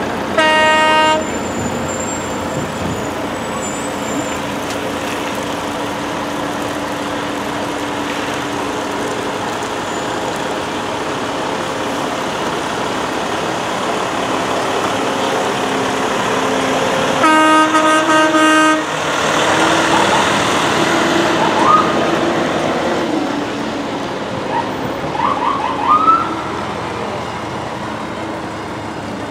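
Fire trucks driving past with engines running, sounding two loud horn blasts, one about half a second in and a longer one about 17 seconds in, with a few short rising siren chirps near the end.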